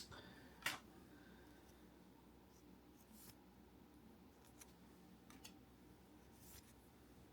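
Near silence with a few faint ticks and rustles of trading cards being handled, the sharpest one a little under a second in.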